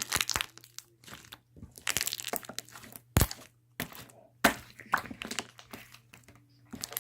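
Overactivated slime being stretched and squeezed by hand, crackling and popping in irregular bursts as its air bubbles burst, with a sharp loud crack about three seconds in.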